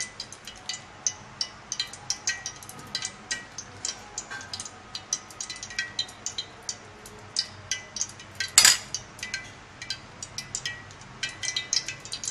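A metal spoon clicking and scraping as minced meat is packed into a hollowed bitter gourd, with a spoon knock against the bowl about eight and a half seconds in. The small, sharp clicks come irregularly, a few a second.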